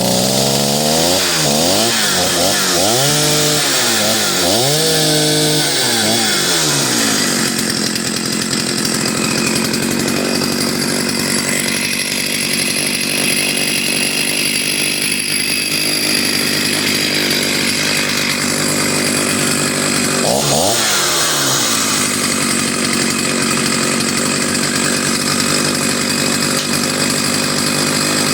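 Vintage Partner S55 two-stroke chainsaw running. It is revved up and back down about four times, then settles to a steady idle, with one quick blip of the throttle about twenty seconds in.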